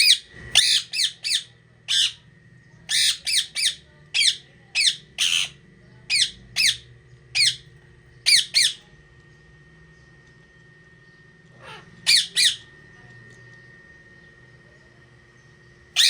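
Parrot squawking: a quick run of short, loud, high-pitched calls, then a pause of a few seconds, two more calls, and one more near the end.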